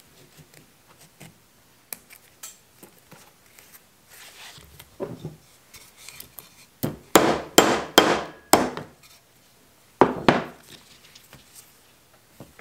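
Ball-peen hammer blows setting a metal rivet through a leather sheath strap resting on a granite slab. A quick run of about six sharp strikes comes around the middle, then two more near the end, after some light handling clicks.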